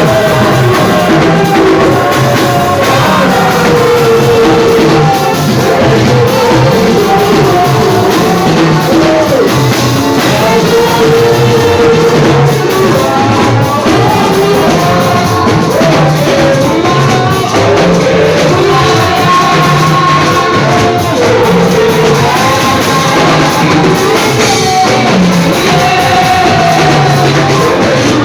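Church worship music: singing over drums and other instruments, loud and continuous.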